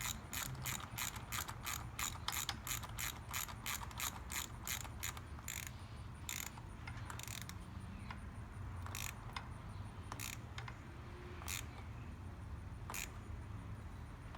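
Socket ratchet clicking as it turns the nut on the end of a new oil filter: quick clicks about three a second while the filter spins on, then single, spaced clicks as it is snugged down.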